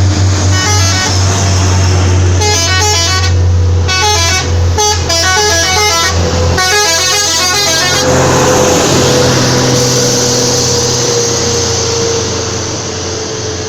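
ALS bus's telolet horn playing quick runs of musical notes in several bursts over a steady low diesel engine hum. After about eight seconds the horn stops, leaving engine noise with one tone slowly falling in pitch.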